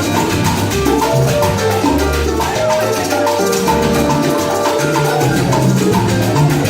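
A live salsa band playing: a bass line and steady percussion, with a repeating figure of short high notes on top.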